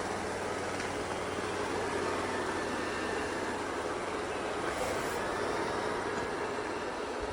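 Eureka robot vacuum running, a steady motor whir with a constant low hum underneath.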